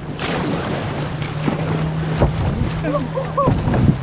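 Wind buffeting the microphone over rushing, choppy water as a canoe is paddled through the standing waves of a tidal bore, with a few low thumps and a steady low hum underneath. A brief voice-like call near the end.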